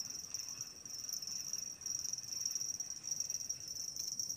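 Insects trilling in a steady, high-pitched chorus.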